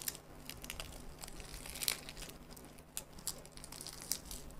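Crisp seaweed crackling and crunching as a seaweed-wrapped mouthful of noodles is bitten and chewed, in many short, irregular crackles.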